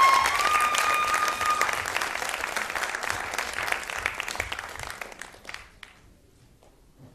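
Audience applauding, the clapping dying away over about six seconds. A steady high tone carries over from before and stops after the first second or two.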